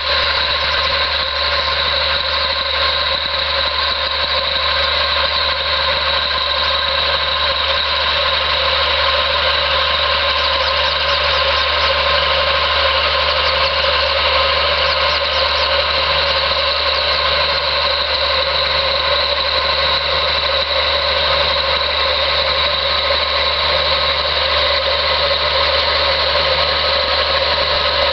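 Massey Ferguson 2640 tractor's six-cylinder diesel running steadily under load while pulling a plough.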